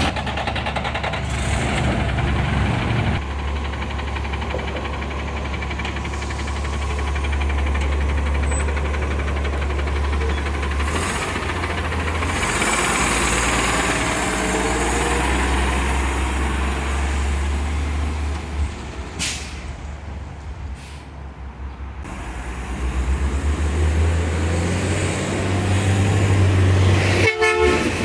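Autocar CNG garbage truck's engine running with a leaking exhaust, a steady low rumble with a hiss of air brakes partway through. The engine note drops for a few seconds, then comes back louder as the truck pulls away.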